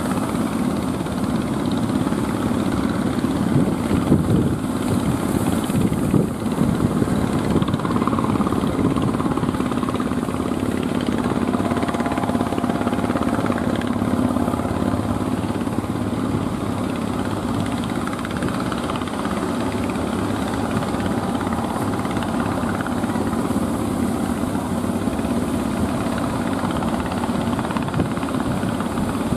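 Engines of wooden fishing boats running steadily as the boats push through breaking waves, a constant low rumble mixed with surf and wind.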